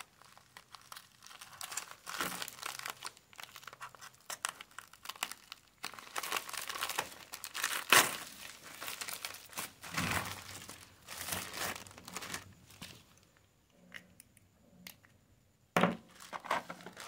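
Plastic courier mailer torn open and plastic wrapping crinkling and rustling as the contents are handled, in irregular bursts with a short lull near the end.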